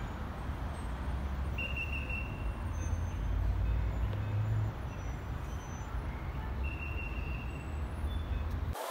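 Low, steady rumble of street traffic, swelling a little in the middle, with two brief high-pitched squeals, about two seconds and about seven seconds in.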